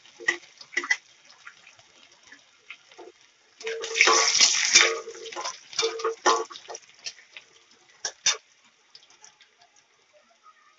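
Chopped garlic sizzling in hot oil in a kadai while a spatula scrapes and stirs it, loudest about four seconds in and thinning out after, with two sharp taps of the spatula a little after eight seconds.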